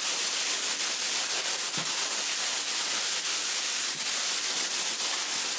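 A clear plastic bag of dry cat kibble being squeezed and kneaded by hand to mix in added supplements: continuous crinkling of the plastic and rustling of the kibble shifting inside.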